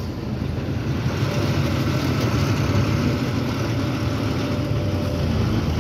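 Truck's diesel engine idling steadily, heard from inside the cab while the truck stands in traffic.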